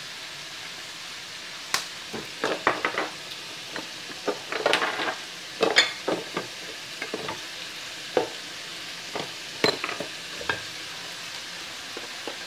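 Shrimp and vegetables sizzling steadily in a frying pan, with irregular sharp clicks and knocks of kitchen utensils, thickest between about two and six seconds in and scattered until about ten seconds.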